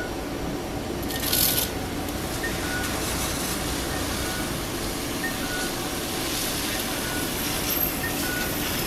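Toyama Light Rail TLR0600 tram standing at a stop with its equipment running steadily; a short hiss of released air comes about a second in, and a faint short high beep repeats every second or so.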